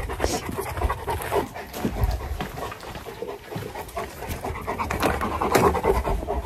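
A dog panting close by, with scattered knocks and rustling.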